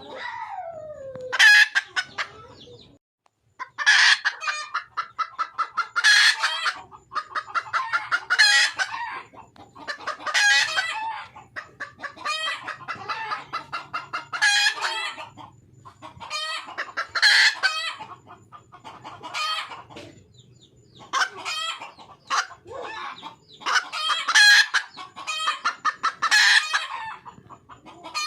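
Junglefowl hen calling to attract a male: runs of quick clucks that build into a loud, high squawk, repeated about every two seconds. A falling call opens the sequence.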